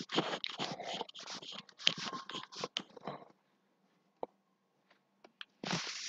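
Faint rapid scratchy clicking for about three seconds, then a few isolated ticks and a short breathy rush near the end.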